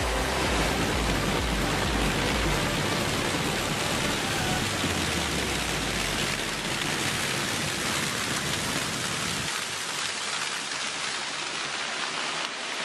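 Claas Lexion combine harvester running while harvesting maize: a loud, steady rushing noise with a heavy low rumble that thins out about halfway through.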